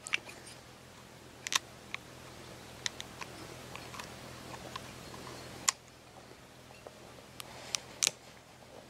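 Cracked walnut shell being picked and snapped apart by hand around the kernel: about a dozen irregular sharp cracks and clicks, with the loudest near the start, a little past halfway, and near the end.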